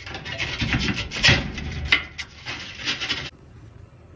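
Sandpaper rubbed in short strokes against the terminal of a GE/Hotpoint dryer heating element where the purple wire burned, cleaning the connection for the wire repair. The rubbing stops about three seconds in.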